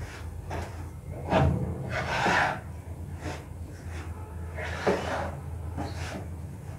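Wooden spatula scraping and knocking against a non-stick frying pan in irregular strokes, stirring rice flour into hot palm pulp to form a dough, over a steady low hum.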